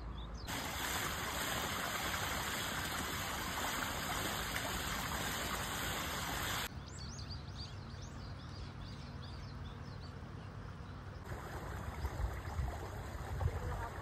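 Shallow stream of water running over rocks: a steady rush, louder in the first half, then softer after a sudden change about halfway through. A few brief high chirps come in just after the change.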